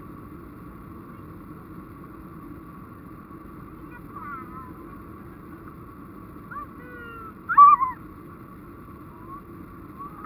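Steady engine and airflow noise inside a Boeing 737 airliner's cabin during the climb after takeoff. Over it come a few short high squeals that slide in pitch, the loudest about seven and a half seconds in.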